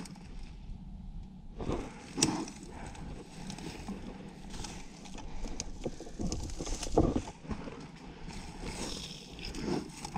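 Footsteps crunching through dry brush and dead leaves, with twigs and branches rustling and snapping underfoot; the sharpest cracks come about two seconds in and again about seven seconds in.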